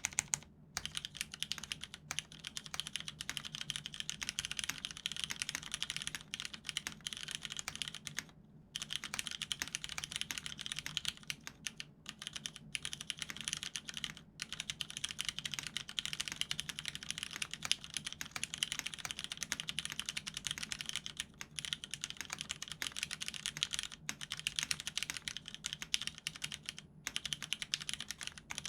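Fast, continuous typing on a mechanical keyboard with lubed vintage Cherry MX Brown switches in an LZ-XE case with an aluminium plate and Cherry OG dye-sub keycaps. It is a dense patter of keystrokes, broken by a few brief pauses.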